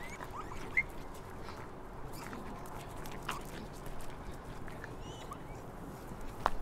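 Scattered short, squeaky chirps and pitch glides, a few each second, like small animal or bird calls, over a steady background hiss, with a few faint clicks.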